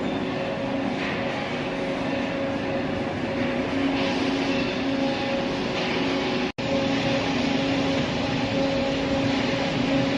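Industrial microwave dryer running: a steady machine hum with a constant rushing noise, cut off for an instant about six and a half seconds in.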